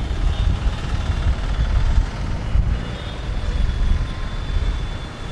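Heavy road traffic heard from a motorcycle riding through it: a steady low rumble of engines and road noise, with a faint high whine running through it.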